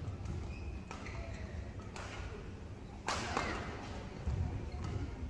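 Badminton rackets striking the shuttlecock in a fast doubles rally: sharp cracks about a second apart, the loudest about three seconds in, over a low arena hum.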